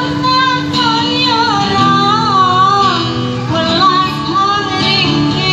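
A woman singing a slow pop song into a microphone, holding long wavering notes, accompanied by a strummed acoustic guitar and amplified through a small street PA speaker.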